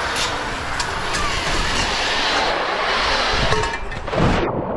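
Loud rushing, splashing water noise with a few knocks, turning suddenly muffled about four seconds in as the action camera goes under water.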